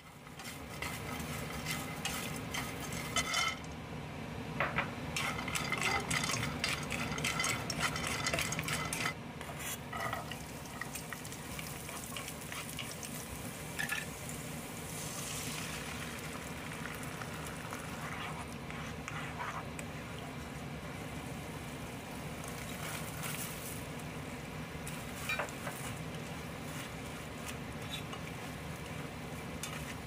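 Food frying in a pan with a steady sizzle, stirred with a utensil that scrapes and knocks against the pan, busiest in the first third.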